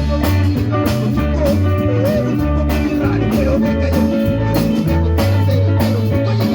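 Band music with guitar, bass and drums playing a steady beat under a wavering melody line.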